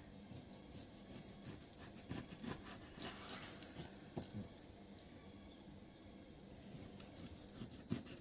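Knife slicing through a boneless catfish fillet: faint scraping with a few light taps scattered through.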